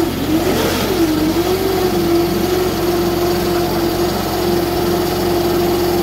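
Tractor engine running a Hovei Christmas tree baler: a steady mechanical hum whose pitch wavers down and back up about a second in, then holds level.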